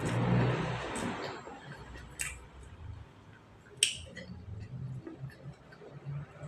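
A few short, sharp clicks, the loudest about four seconds in, over a low background hum.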